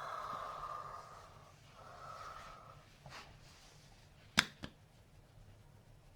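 A person hiccuping between breaths: a faint hiccup about three seconds in, then a sharp loud one followed by a smaller one a quarter second later, with hissy breaths before them.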